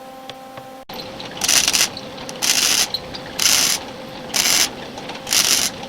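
A piece of 16-gauge sheet steel being cut in five separate strokes, about one a second, each a short grating rasp.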